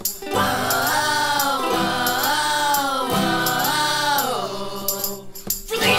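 Background song with long held sung notes over a steady low accompaniment, pausing briefly near the end.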